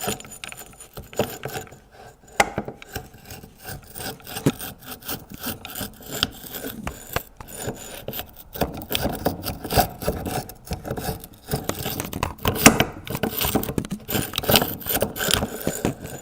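Mini lathe tailstock being worked along the lathe bed, metal scraping and grating in an uneven run of rubs and clicks. It is the sign of a rough track underside that stops the tailstock plate gliding smoothly.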